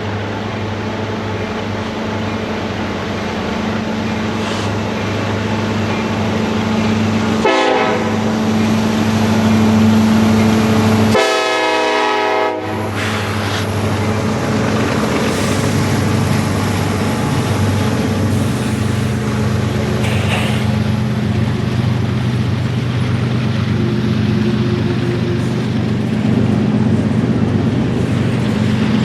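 Diesel railroad locomotives running with a steady engine drone. The horn gives a short note about a quarter of the way in and a longer blast of about a second and a half a few seconds later.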